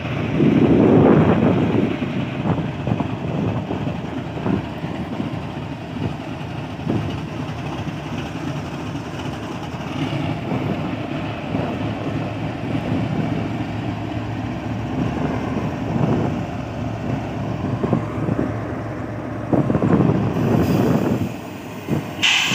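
Pakistan Railways GEU-40 diesel-electric locomotive rolling slowly past at close range: a steady engine rumble with scattered knocks from the wheels on the rails. It swells louder about a second in and again near the end.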